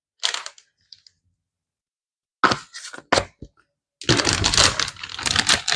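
Plastic zip-top bag crinkling as it is handled: a few short crackles, then steady crinkling from about four seconds in.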